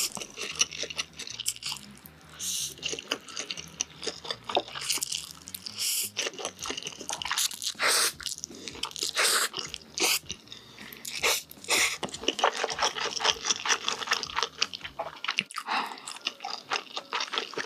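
Close-miked chewing of a mouthful of instant noodles, with wet, sticky mouth clicks and smacks and several louder bursts in the mix.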